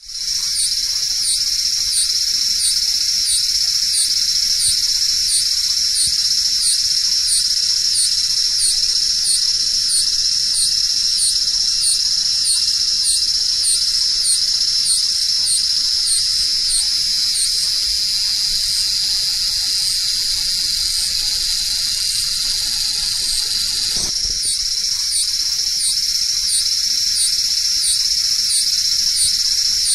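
Cicada calling: a loud, high, steady buzz with a regular pulsing beat over it. About two-thirds of the way through, the pulsing smooths into a steady buzz for several seconds, then the pulsing returns.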